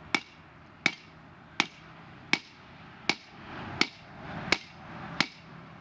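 Hand hammer striking red-hot steel on an anvil while forging an axe head: eight steady blows, a little under one and a half a second, each with a short metallic ring. A soft rushing noise swells between the blows in the second half.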